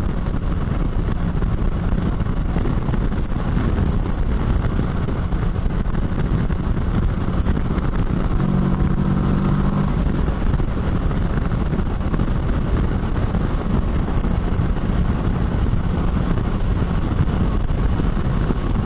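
Kawasaki Versys 650's parallel-twin engine at a steady cruise, mixed with wind and road noise from the moving bike. About eight and a half seconds in, a short steady tone with several pitches rises above the noise for about a second and a half.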